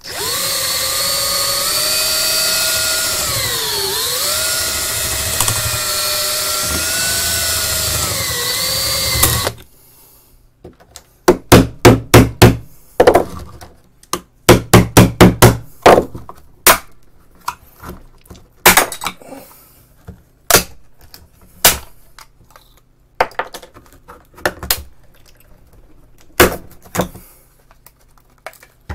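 A power drill running for about nine and a half seconds, drilling out screws whose heads rounded off because the magnesium housing is badly corroded; its pitch sags under load around four seconds in. Then a hammer striking a screwdriver handle: two quick runs of sharp knocks, louder than the drill, then single knocks every second or two.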